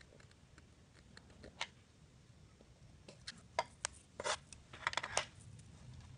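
Handling noise of fingers working a fishing hook, fishing line and small scissors: a few faint ticks, then a cluster of sharper clicks and short rustles from about three to five seconds in.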